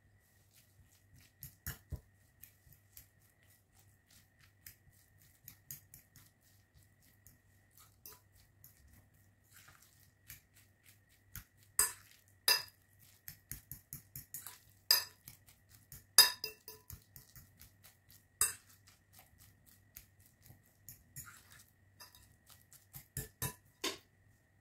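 Metal fork clinking and scraping against a glass bowl while mashing boiled potatoes and carrots. The clinks are scattered, with a few sharper ones in the middle and a quick run of taps near the end.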